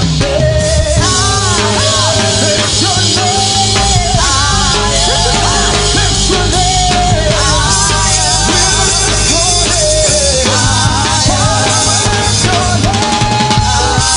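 Live gospel praise-break music: a driving drum kit and bass under a melody line that wavers in pitch, loud and continuous.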